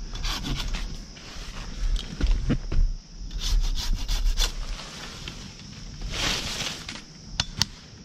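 Curved hand pruning saw cutting through a tree limb, drawn back and forth in uneven strokes with short pauses.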